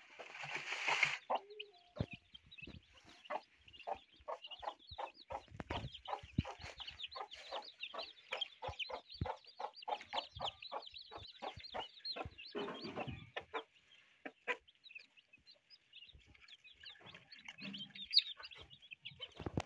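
Newly hatched native baladi chicks peeping in short, high cheeps, with a broody hen giving a steady run of short clucks, about three a second, that stops about two-thirds of the way through.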